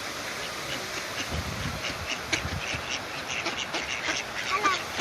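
Ducks calling over a steady background hiss, with one short quack near the end and faint short chirps scattered throughout.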